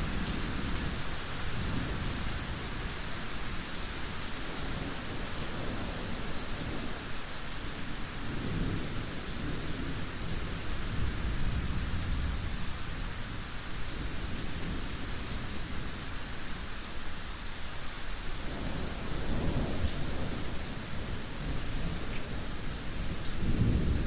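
Heavy rain falling steadily in a thunderstorm, with thunder rumbling and swelling several times, strongest near the end.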